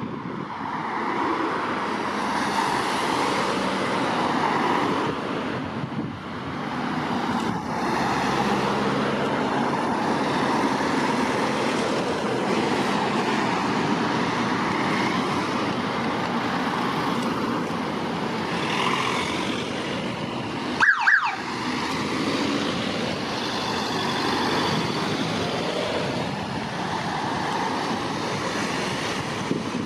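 Vehicles of a police escort driving out past a roadside, a steady traffic noise, broken about two-thirds of the way through by a short siren blip: two quick falling yelps.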